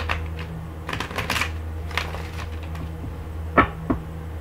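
Tarot cards being shuffled by hand: a run of quick papery snaps and clicks, thickest about a second in, then two sharper knocks near the end, over a steady low hum.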